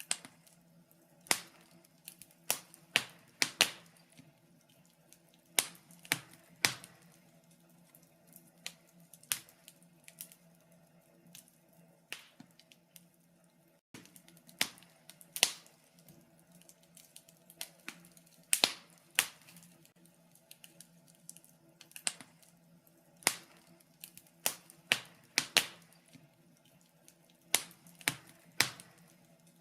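Wood fire in a fireplace crackling: irregular sharp pops and snaps, now single, now several in quick succession, over a faint steady low hum.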